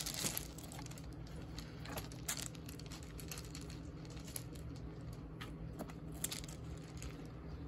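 Dog paws shifting on loose pebbles: scattered crunches and clicks of stones, a few louder ones among them, over a steady low background.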